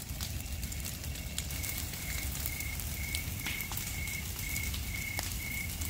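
Brush fire crackling: dry vegetation and felled wood burning, with many sharp pops over a low steady rumble. A high, even chirp repeats about twice a second from about a second and a half in.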